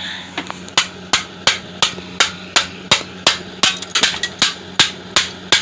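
Floppy disk being smashed with a hand tool: a rapid series of sharp strikes, about three a second.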